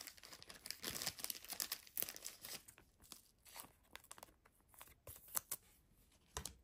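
Faint crinkling and rustling of a soft clear plastic penny sleeve as a chromium trading card is slid into it and handled: a scatter of small, irregular crackles.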